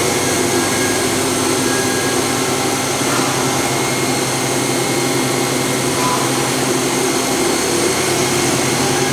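Hitachi Seiki HT-20SIII CNC turning center running, its spindle turning at about 2800 RPM: a steady mechanical hum with several constant tones over an even hiss.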